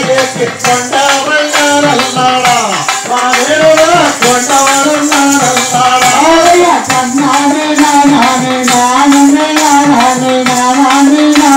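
Tamil valli kummi folk song: a sung melody with held, sliding notes over a steady rattling percussion beat.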